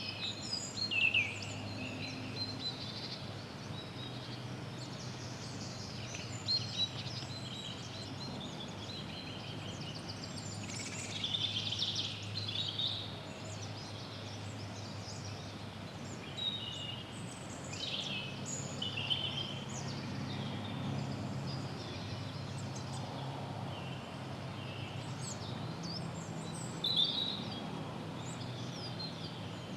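Early-spring woodland birdsong: several birds singing and calling in short, overlapping chirps and trills, some louder ones close by, over a steady low background hum.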